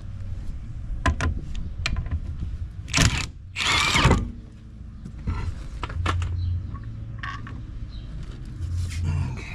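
Tools knocking and clinking on metal during rear strut work on a car, with a loud rushing noise lasting under a second about three and a half seconds in.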